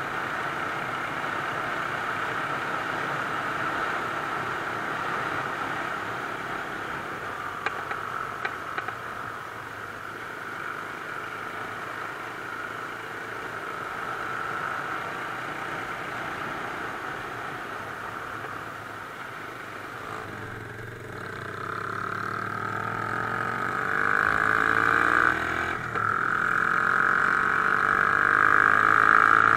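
Mash Cafe Racer 250 motorcycle engine running under way, heard from an on-board camera with steady wind rush. About two-thirds of the way in, the engine note climbs as the bike accelerates and gets louder, with a brief drop shortly before the end.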